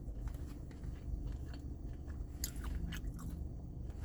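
Close-up chewing of a Korean corn dog with a crunchy Cheetos-and-batter coating: irregular crisp crackles and clicks of the crust breaking between the teeth.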